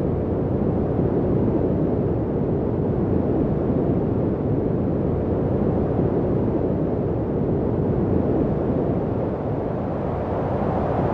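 Steady generated white noise from the AmbiBaby app, shaped to a deep rumble with most of its energy low down and only a little hiss above. It turns slightly brighter near the end.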